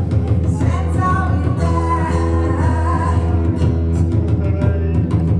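A woman singing a melody to her own strummed acoustic guitar. The voice is clearest from about a second in through the middle.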